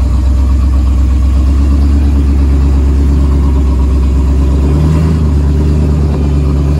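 Off-road vehicle's engine running steadily at low trail speed, heard from inside the cab; its note changes about five seconds in.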